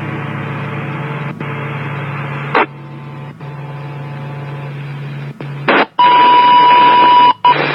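Radio channel hiss with a low hum and a few short bursts and dropouts, then, about six seconds in, a loud steady pager alert tone held for about a second and a half and cut off sharply: the tone that sets off the fire pagers ahead of a test page.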